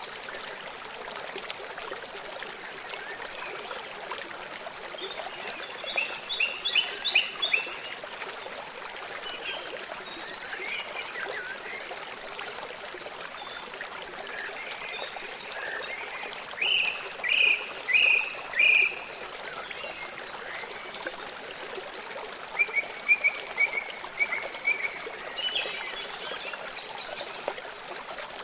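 A stream running steadily, with birds calling over it in short series of quick, fairly high notes, three or four to a series.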